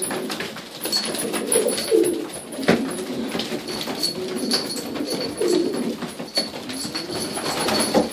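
A flock of domestic pigeons cooing over one another, low and wavering, with scattered sharp clicks, the loudest about a third of the way in and another near the end.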